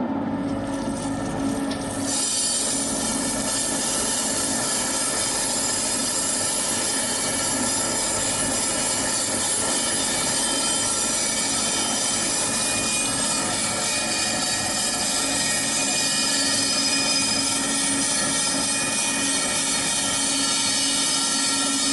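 Crankshaft grinding machine running with its grinding wheel being dressed: a steady motor hum, joined about two seconds in by a steady high hissing scrape as the dressing tool cuts across the stone to level it.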